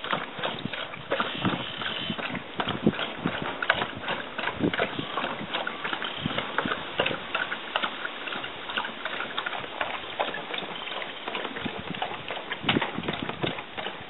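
A sled dog with its head down in a plastic bucket, feeding from it: a dense, irregular run of clicks and knocks from its mouth and the bucket.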